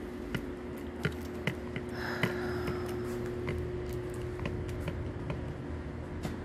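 Footsteps on a tiled shop floor: irregular light clicking steps about two a second, over a steady low electrical hum in the room.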